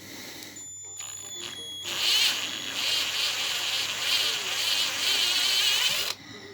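Electric drill with a step drill bit enlarging the bearing hole in a differential casing to take a tight-fitting flange bearing. It gives a loud, wavering high-pitched buzz that starts about two seconds in and cuts off abruptly near the end.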